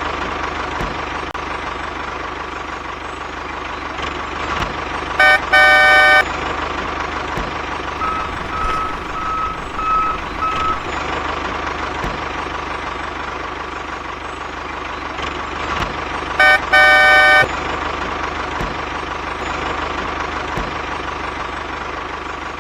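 Small electric motor of a miniature DIY toy tractor running steadily with a constant whine. A vehicle horn toots twice, short then long, about five seconds in and again about sixteen seconds in. Between them come four short, evenly spaced beeps.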